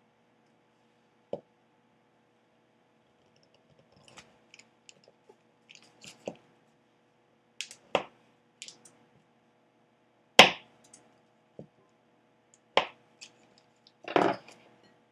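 A kitchen knife cutting sticks of butter into cubes on a cutting board: a string of sharp, irregularly spaced knocks as the blade meets the board, the loudest about ten seconds in, over a faint steady hum.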